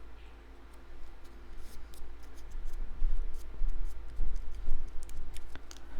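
Cardstock pieces being handled on a work table: a run of irregular light clicks and taps that grows louder and busier about three seconds in.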